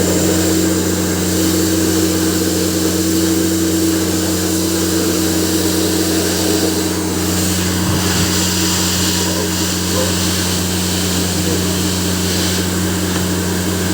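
Electric hair dryer running steadily: a constant motor hum under a rush of blown air, played over a computer keyboard's keys to blow out the dirt under them.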